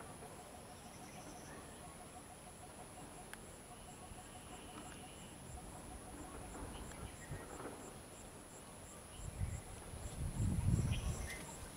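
Insects calling: a steady high whine with a chirp about three times a second. About nine seconds in, a low rumble swells to become the loudest sound, then fades near the end.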